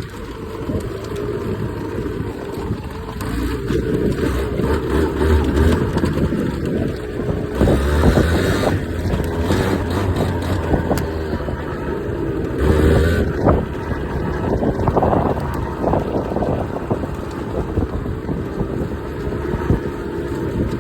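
Beta RR 50 enduro's 50cc two-stroke engine running as the bike is ridden off road, the revs rising and falling, with louder surges about eight and thirteen seconds in.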